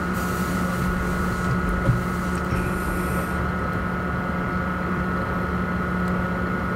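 A steady machine hum: a low drone with a thinner high whine over a soft even hiss, holding level with no change.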